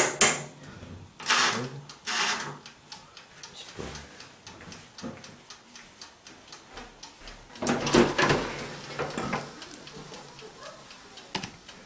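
Countertop grill oven's mechanical timer ticking steadily after its knob is wound, with a few clunks from handling the oven near the start. About eight seconds in, a louder rattle and clatter as the oven door is pulled open.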